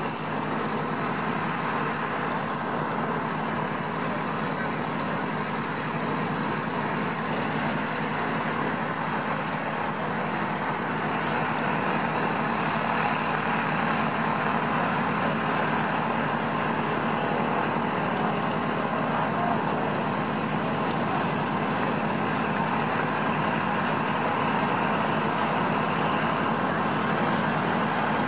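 Douglas DC-3's radial piston engines idling steadily, growing slightly louder about halfway through.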